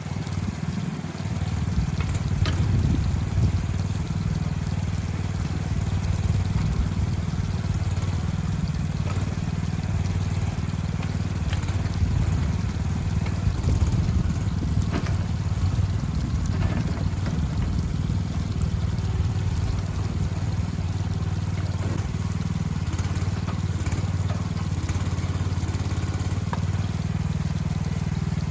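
A heavy machine's engine running steadily at a low, even pitch.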